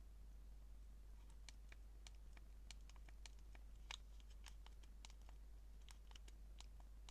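Near silence with a low steady hum, broken from about a second in by faint, irregular clicks of phone keypad buttons being pressed, one a little louder near the middle.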